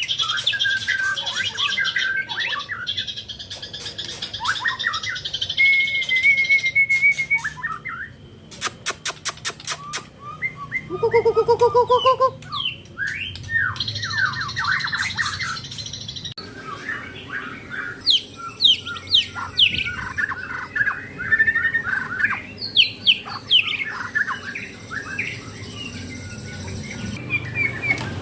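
White-rumped shama (murai batu) singing a long, varied song of quick whistled notes and chattering, with a fast run of sharp clicks about nine seconds in.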